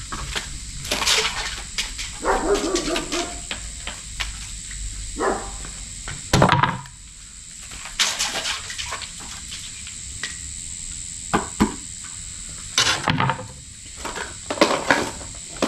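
Blocks of frozen ice knocked out of plastic takeaway containers and dropped into the water of a portable ice bath: a run of plastic clicks and knocks, with two louder splashes.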